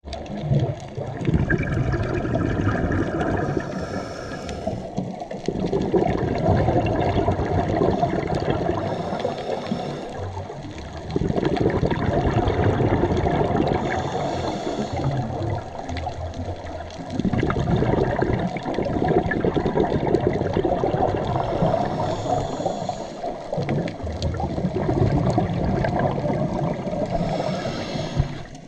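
Scuba diver breathing through a regulator underwater: five breaths, each a short hiss of inhalation followed by a long rush of exhaled bubbles.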